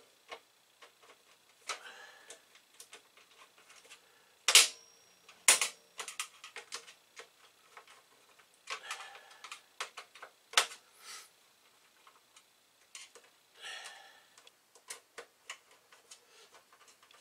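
Irregular clicks, light knocks and short scrapes of hands fitting the Amiga 1000's sheet-metal top shield into the case. The two loudest knocks come about four and a half and five and a half seconds in, the second with a brief metallic ring.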